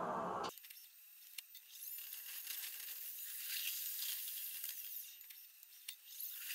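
A moving tram heard thin and high: several high-pitched whines that rise and fall over a hiss, with a couple of sharp clicks. Music cuts off about half a second in.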